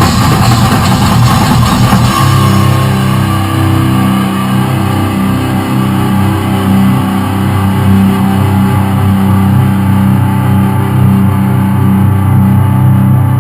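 Heavy rock music with electric guitar. About two seconds in, the busy, hard-hit playing gives way to long, sustained low chords that ring on.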